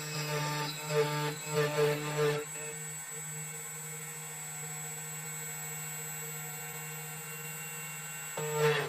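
CNC key cutting machine's cutter milling a flat key blank, the motor running with an uneven, pulsing sound for the first couple of seconds, then a steady hum.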